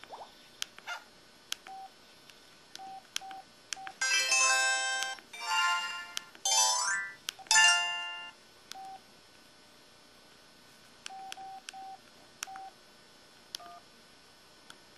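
LG-SV110 flip phone's speaker playing its built-in effect sounds: short key-press beeps with small button clicks, then, about four seconds in, a run of louder electronic chimes and a quick rising tone sweep lasting about four seconds, before the scattered key beeps resume.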